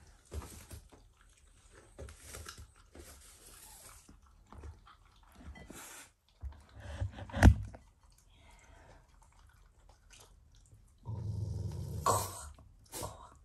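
Shiba Inu eating, chewing and crunching its food in short bursts, with a sharp knock about halfway through and a louder low sound lasting a second or so near the end.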